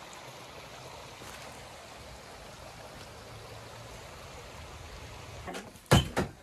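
Steady running water, then a loud clatter of kitchenware striking together near the end.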